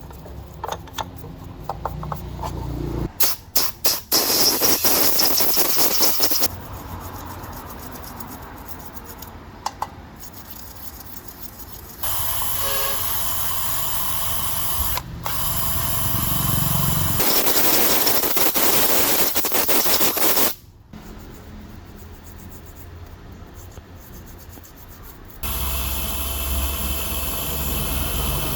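Workshop power tools running in several separate stretches, each starting and stopping abruptly, with quieter gaps between.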